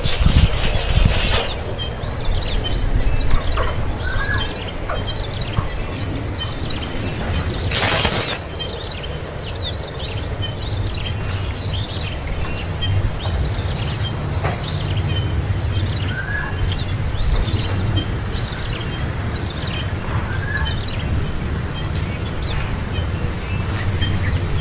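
Small birds chirping in short, scattered calls over a steady high-pitched insect buzz, with one brief rustle or knock about eight seconds in.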